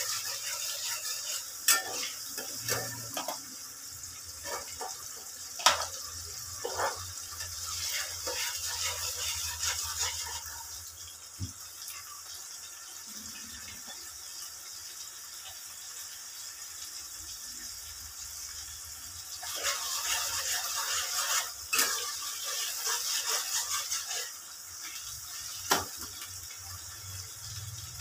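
Tomato and roasted-onion paste sizzling in oil in a frying pan, with a spatula scraping and knocking against the pan now and then. The sizzle grows louder in two spells of stirring, around eight to ten seconds in and again from about twenty seconds in.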